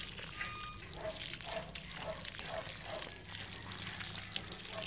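Pumped water running out of the open end of a garden hose onto the soil, a steady trickle.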